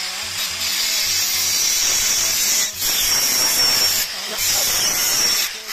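Handheld angle grinder running, its disc grinding into steel bar: a loud hissing rush of metal on the abrasive disc over the motor's steady high whine, dropping out briefly twice.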